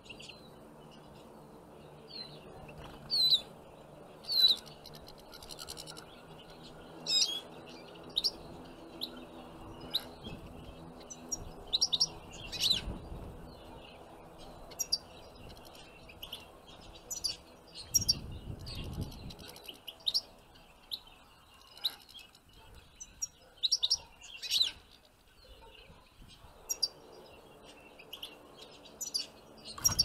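Small finches, European goldfinches among them, calling at a seed-baited trap cage: short, high chirps and twitters scattered irregularly, a few sharply louder, over a faint low steady hum.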